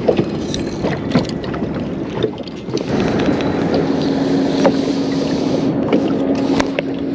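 Noise on a small fishing boat: wind on the microphone and water, with scattered handling clicks and knocks. A steady low hum comes in about three seconds in.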